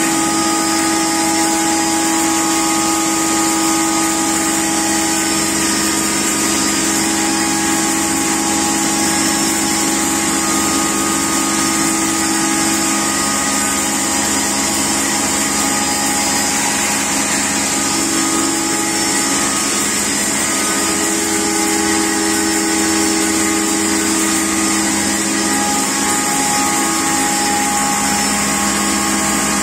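A 14-inch double-stage blower-type pulverizer running steadily: an even, loud machine hum with several steady tones and a constant high hiss from the high-speed grinding rotor and blower fan.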